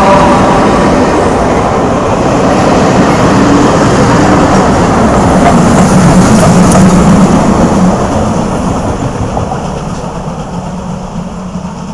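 A passenger train rolling past at close range: steady rumbling of wheels on the rails, loudest as the rear steam locomotive 464.102 goes by about six seconds in, then fading as the train moves away.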